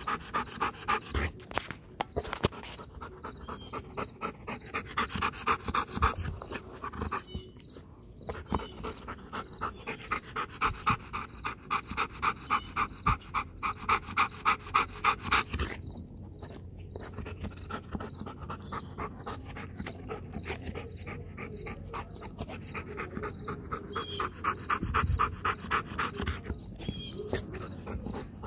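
Belgian Malinois panting hard in quick, even breaths, about three a second, with a couple of short pauses. The dog is winded from a workout.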